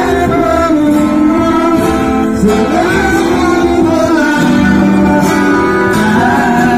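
Acoustic guitar played as accompaniment while a man sings a song into a microphone, with long held notes that slide in pitch.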